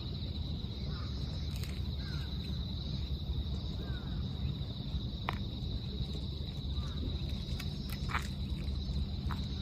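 Insects trilling steadily at one high pitch, over a low, steady rumble, with a few faint short chirps and clicks.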